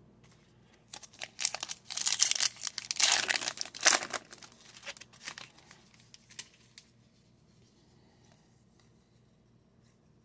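Foil trading card pack wrapper being torn open and crinkled, in loud crackling bursts for about three seconds, then a few lighter crinkles.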